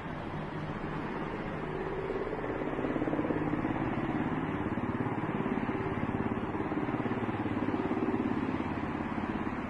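Helicopter flying overhead, its engine and rotor running with a fast, even pulsing; the sound grows louder about two seconds in and stays up, with its pitch bending slightly as it circles.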